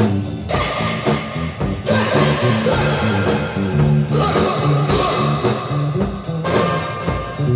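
Rock band improvising: electric guitar playing sustained chords and riffs over bass guitar and a steady drum-kit beat.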